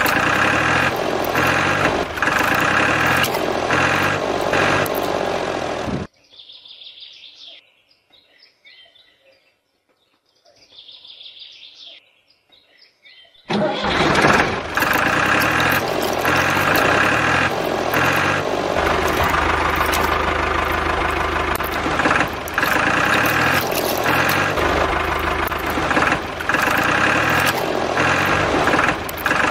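Steady engine-like running noise with a repeating pulse. It cuts off abruptly about six seconds in, leaving only faint bird chirps, and starts again about seven seconds later.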